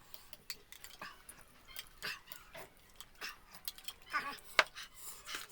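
Close-miked eating sounds: wet chewing and slurping, with small scattered clicks of cutlery against a bowl.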